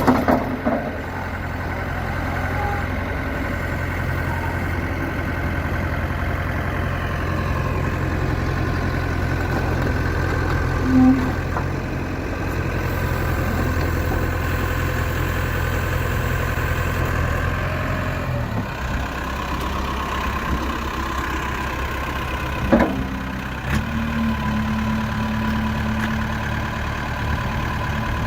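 1995 JCB 210S backhoe's diesel engine running steadily. Its note changes about two-thirds of the way through, and there is a single sharp knock shortly after.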